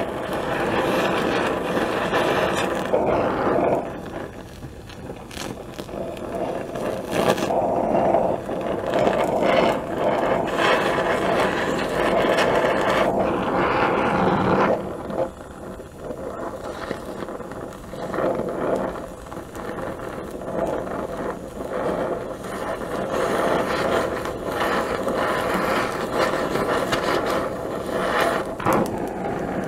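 Gas welding torch flame running with a steady hiss while silver solder is melted onto a broken stainless bolt. The flame noise drops for several seconds about halfway through and then rises again.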